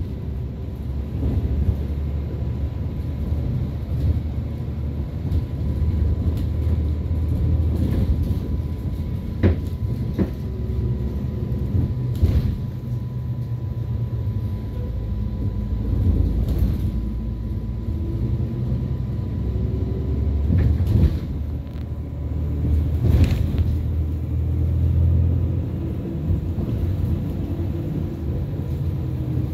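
City bus cabin on the move: a steady low engine and road rumble, with a faint steady whine and a few sharp knocks and rattles here and there.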